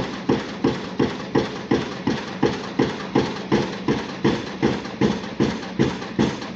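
Junttan PMX22 pile driving rig's hydraulic impact hammer driving a pile: steady ringing blows about three a second, over the rig's engine running.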